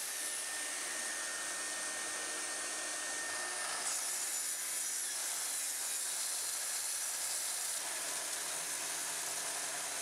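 Festool track saw running steadily as it cuts a long miter along its guide rail in a hardwood board.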